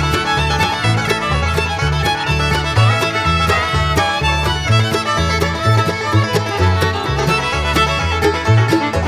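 Background bluegrass-style music with fiddle, banjo and a bouncing bass line at a quick, steady beat.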